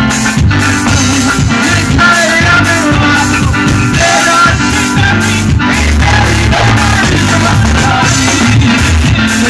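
Live band playing loud music: electric keyboard and electric guitar over a heavy bass line with a steady beat.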